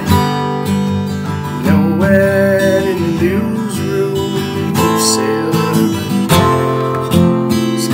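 Acoustic guitar strummed steadily in chords, with a man singing over it.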